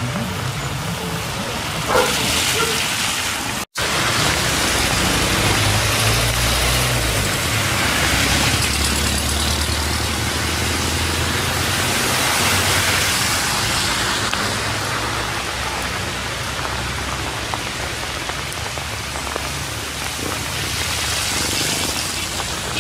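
Steady rain falling, an even hiss with no let-up. A low rumble sits underneath for several seconds in the middle, and the sound cuts out for an instant early on.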